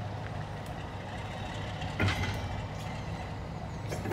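Class 47 diesel locomotive's engine running steadily as it slowly hauls a rake of iron ore tippler wagons past. A sharp clank from the wagons comes about two seconds in, and another near the end.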